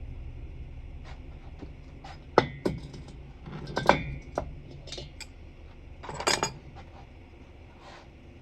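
Metal parts and tools clinking and knocking on a hard surface: a run of sharp clinks with brief ringing, the loudest a little over two seconds in and about four seconds in, then a short clatter about six seconds in.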